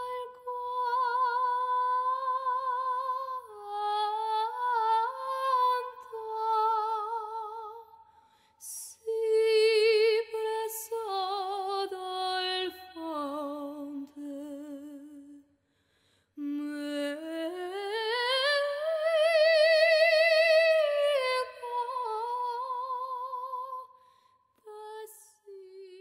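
Solo female voice singing a slow, unaccompanied melody of long held notes with vibrato, broken by a few short pauses. It ends on a few short notes near the end.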